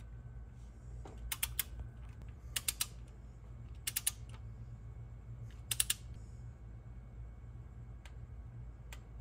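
Click-type torque wrench ratcheting in four short bursts of a few sharp clicks each, about a second or two apart, as water pump bolts are run down and torqued to 8 ft-lb. A steady low hum sits underneath.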